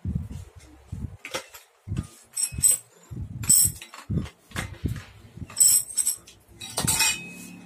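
Irregular clinks and knocks of balance-bike parts and loose metal tools being handled, with several bright metallic clinks and a few dull low bumps of parts set down or tapped together.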